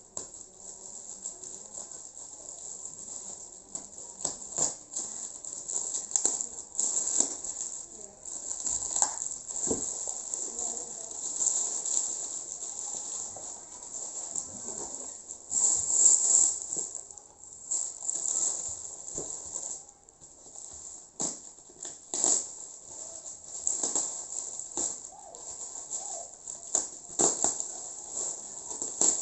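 Packaging being handled and unwrapped: irregular rustling with many short clicks and knocks, coming and going in uneven spells.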